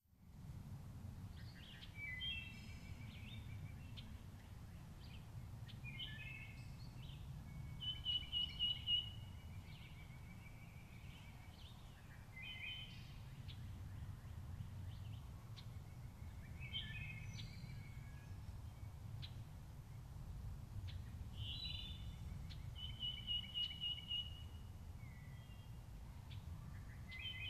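Wood thrush singing: short song phrases repeated every four to five seconds, some ending in a held steady note, over a steady low rumble.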